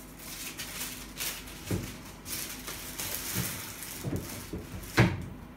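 Handling noise from packaging and record sleeves: rustling with a few soft knocks, and a sharp click about five seconds in.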